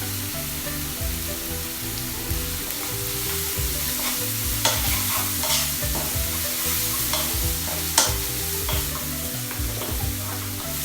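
Chopped onion and carrot sizzling in hot oil in a pan while being stirred, with a utensil clicking and scraping against the pan now and then; the sharpest knock comes about eight seconds in.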